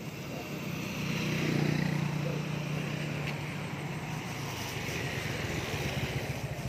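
Road traffic passing close by: a vehicle engine hums steadily, loudest about a second and a half in, over a steady hiss of tyres on the road.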